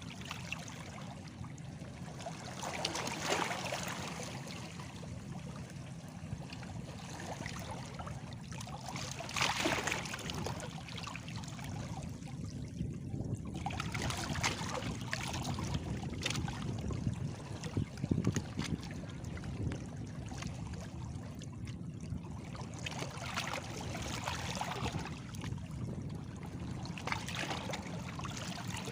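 Small sea waves lapping and washing against stones, a steady splashing wash with a stronger surge every several seconds.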